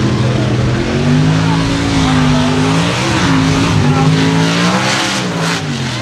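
Big-engined mud racing pickup running hard down a mud track, its engine note climbing, dipping briefly about three seconds in, then falling away near the end, with a spray of mud and dirt over it.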